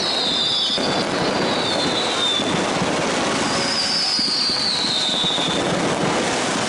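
Aerial fireworks going off in a dense, continuous crackle. Two high whistles slide slowly down in pitch, one at the start and another from about the middle.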